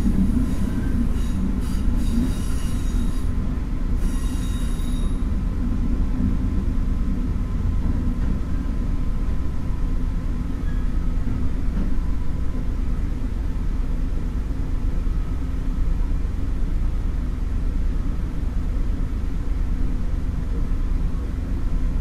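Diesel railcar running and slowing to a stop, heard from inside: a steady low rumble of engine and wheels, with a high metallic squeal in the first five seconds or so. The rumble carries on after the train halts.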